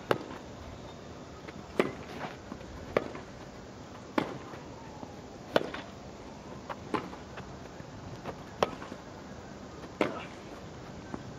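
Tennis racquets striking the ball back and forth in a baseline rally: about eight sharp hits, one every second and a half or so.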